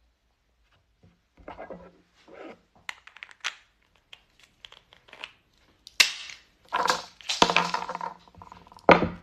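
Walnut shells being cracked and crunched by hand, a run of crackly bursts with the sharpest, loudest cracks in the second half.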